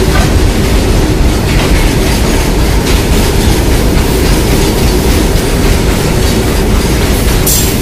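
Coal-loaded freight train of open wagons passing close by: a loud, steady rumble of steel wheels running on the rails.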